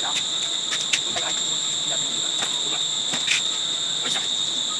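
Steady, unbroken high-pitched insect drone, like crickets or cicadas, with a few faint clicks and knocks scattered through it.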